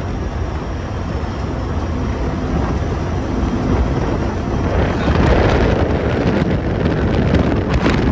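Polaris RZR side-by-side driving on a dirt track: engine and wind noise, getting louder about five seconds in.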